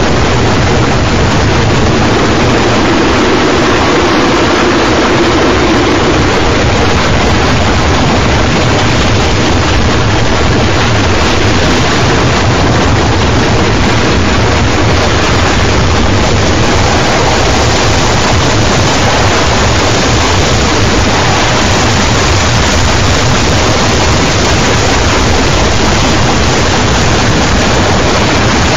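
Harsh noise music from an old G.M.X. 802V: a loud, unbroken wall of noise with a heavy low rumble underneath, holding steady without pauses.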